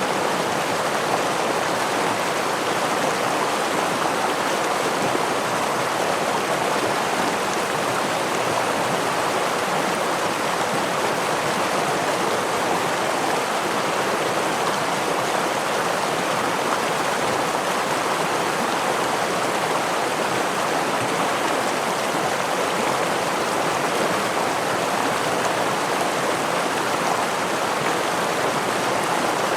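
Stream and small waterfall running in a steady, even rush of water with no separate splashes or changes.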